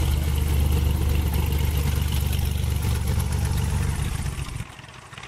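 A V-tail Beechcraft Bonanza's flat-six piston engine and propeller running at low taxi power close by: a loud low rumble with a fast, even pulsing from the propeller. It falls away abruptly near the end.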